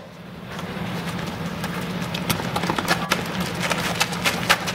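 Footsteps and shoe scuffs of players running on an asphalt court, with a soccer ball being kicked, heard as scattered sharp clicks that come thicker near the end, over a steady low hum.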